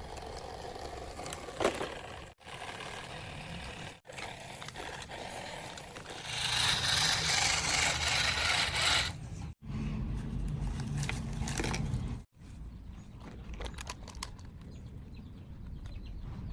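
Toy construction vehicles at work: small motors running with scraping and rattling over the ground, in short clips cut together. The loudest stretch is a hissing scrape in the middle.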